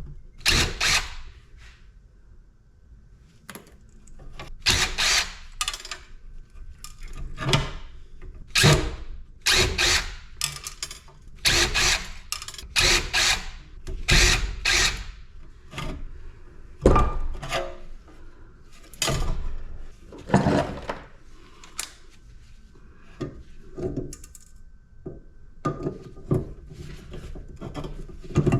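Tools working on the sheet-metal casing and parts of a PTAC air-conditioner being taken apart for scrap: a long run of separate sharp metallic knocks and clanks, roughly one every second.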